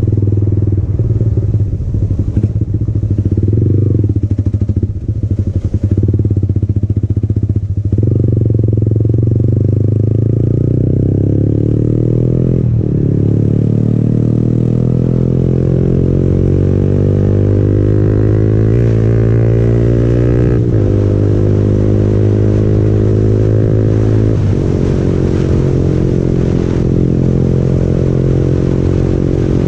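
Yamaha MT-15's single-cylinder engine through an aftermarket Akrapovic exhaust, running under way as the bike accelerates. Its note climbs steadily through the middle, with a few brief breaks and steps in pitch along the way.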